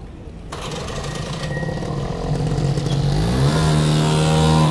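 A motor vehicle's engine revving up, over a hiss, getting louder; its pitch climbs about three seconds in and then holds steady.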